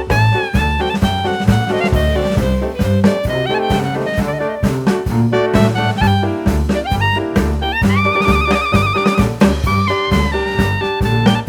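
Background jazz music with brass and saxophone over a steady drum beat, with a long held horn note with vibrato near the end.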